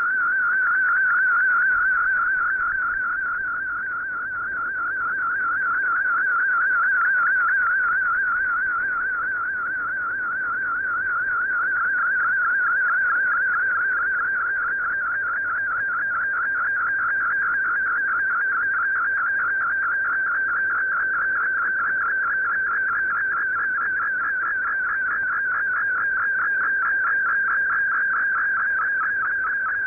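MFSK32 digital picture transmission received off shortwave: a fast, steady warbling tone around 1.5 kHz over radio hiss, sent as two images side by side (frequency-division multiplexed). The signal slowly swells and fades every few seconds with shortwave fading.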